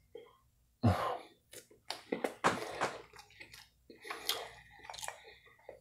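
Close-miked chewing and wet mouth smacks of a person eating a spongy vanilla bean mug cake, in irregular bursts, the loudest about a second in, with light clicks of a metal spoon in a ceramic mug.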